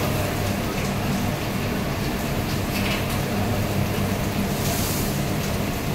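Steady low hum and rushing noise of a commercial kitchen with gas burners lit, with a few faint light clicks about five seconds in.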